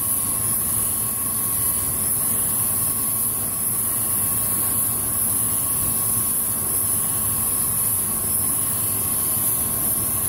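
Camshaft grinder running, its wheel grinding a 5.9 Cummins cam lobe under a flood of coolant oil: a steady machine hum with a high hiss and a faint steady whine. The lobe is being ground down on the base circle to a higher-lift, longer-duration profile.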